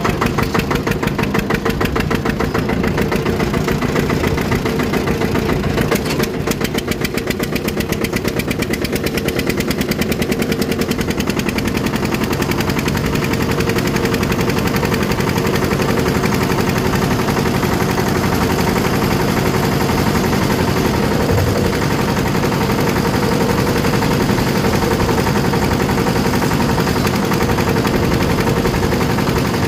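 Eicher 241 tractor's single-cylinder air-cooled diesel engine running under way, a fast steady beat of exhaust pulses, dipping briefly about six seconds in.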